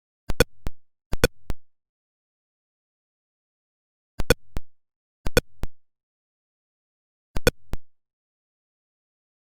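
Atari Pong sound effects: short electronic blips in quick clusters of two or three, five clusters in all, with dead silence between them.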